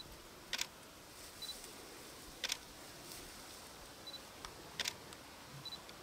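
Camera shutter clicks about every two seconds, each coming shortly after a short high beep.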